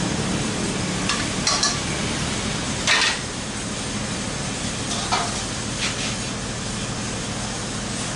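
Chilies, tomatoes, shallots and garlic sizzling in hot oil in a clay pan, a steady hiss. A few sharp clicks and knocks come through it, the loudest about three seconds in.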